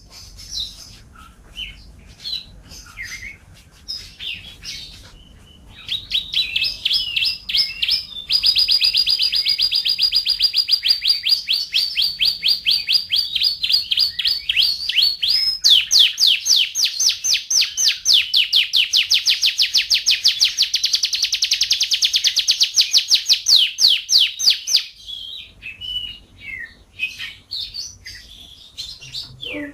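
Domestic canary singing: a few scattered chirps, then a long, rapid trill of quickly repeated high notes lasting about twenty seconds, changing pace partway through, before breaking back into scattered chirps near the end.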